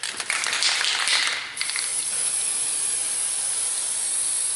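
Aerosol can of anti-seize high-temperature spray grease being sprayed onto a wheel hub face. It is uneven for the first second and a half, then settles into a steady high hiss.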